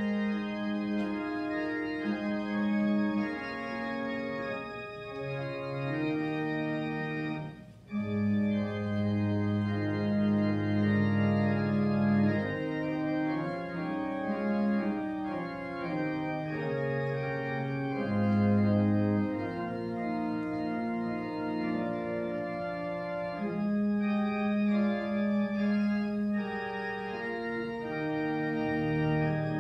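Organ playing slow, sustained chords that change step by step, with a brief break about eight seconds in.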